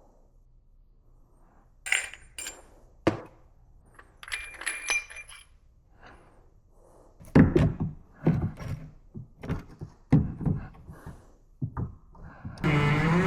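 Hand tools and metal pipe fittings being handled: scattered sharp clicks and knocks, a short ringing metallic clink about four seconds in, then a run of heavier knocks. Music starts just before the end.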